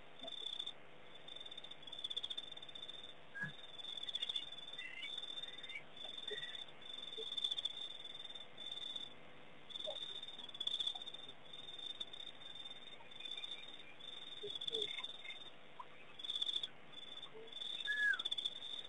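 Night insect chorus at a waterhole: crickets chirping in repeated trains, with a higher buzzing trill that starts and stops every second or so. A few faint short calls come through, one clearer near the end.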